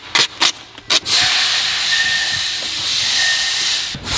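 A few short hissing puffs, then a steady hiss lasting about three seconds that stops suddenly.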